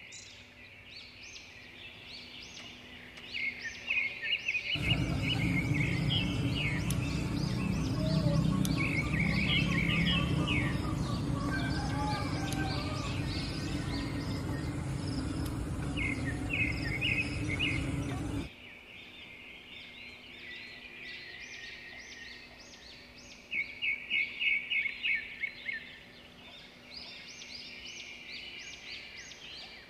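Birds chirping in quick repeated bursts. From about five seconds in, a louder steady rushing noise covers them, then cuts off suddenly near two-thirds of the way through.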